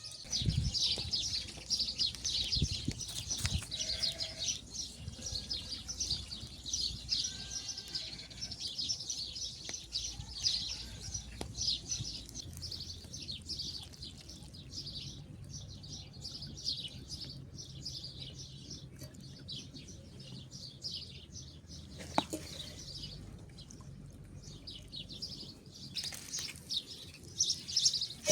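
Many small birds chirping and singing continuously in quick, overlapping high calls, over a low steady rumble. A few knocks come in the first few seconds, and a sharp click comes about 22 seconds in.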